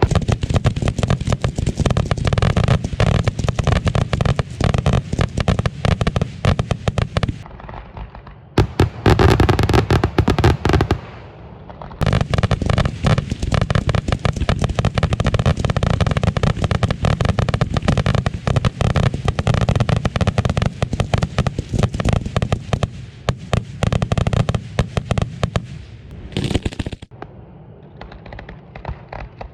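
A finale barrage of aerial firework shells and salutes going off in rapid, overlapping bangs. It drops out briefly twice, about eight and eleven seconds in, and thins to scattered bangs near the end.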